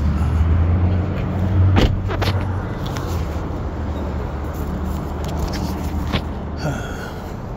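Steady low rumble of motor vehicles running close by, loudest in the first two seconds, with a couple of sharp knocks about two seconds in.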